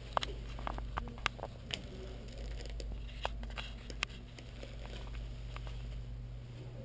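Room tone of a small tiled restroom: a steady low hum, with scattered small clicks and taps through it. No flush is heard.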